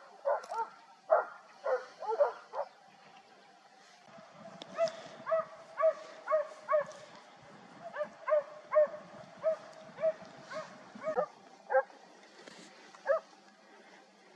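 Hunting dog barking on the chase of a wild boar, in short yelping barks that rise and fall in pitch. There is a quick run of barks at first, a short pause, then a steady string of about one to two barks a second.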